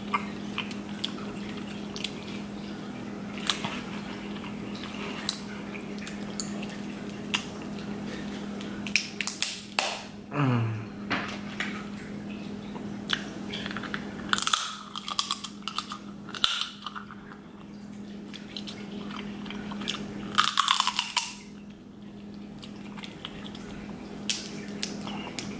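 Close-up wet eating sounds of snow crab legs in Cajun garlic-butter sauce: chewing, lip smacking and sucking meat from the shells, with sharp clicks of shell being cracked and pulled apart. A steady low hum runs underneath.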